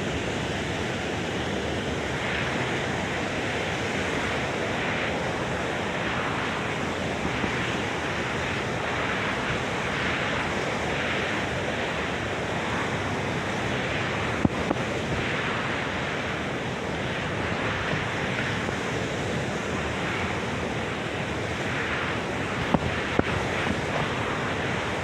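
Heavy storm surf breaking in a steady, surging wash of noise, with strong wind buffeting the microphone. A few brief sharp knocks come about halfway through and near the end.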